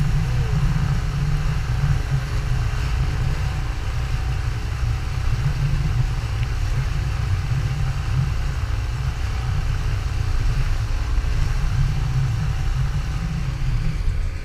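Nissan 9.8 four-stroke outboard motor running steadily at speed, pushing a small inflatable boat through chop, with water rushing past the hull.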